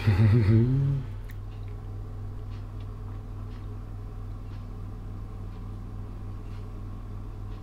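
A brief voice-like sound in the first second, then a steady low hum with a few faint ticks.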